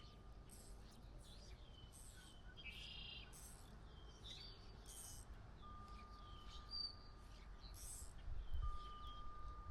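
Small birds chirping: short, high, down-slurred calls repeating about twice a second, faint, over a low outdoor rumble.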